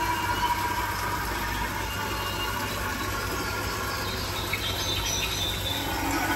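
Dark-ride car running along its track: a steady running noise with thin squealing tones from the wheels that come and go.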